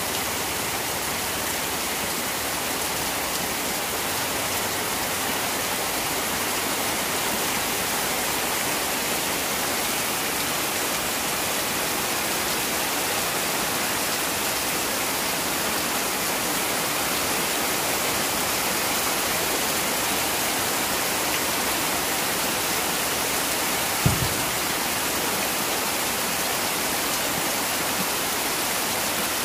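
Heavy rain falling steadily on pond water and concrete, a dense even hiss. A single brief low thump comes late on.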